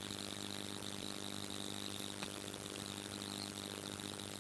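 Steady low hum with a faint hiss from the loudspeaker and microphone system, with no speech over it.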